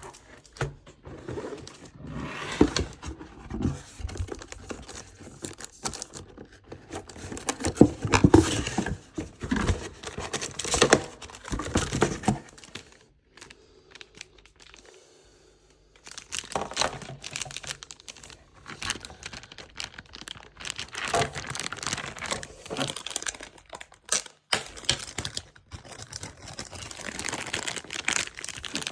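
Packaging crinkling and rustling as it is handled, in irregular bursts with a pause of a few seconds about halfway through.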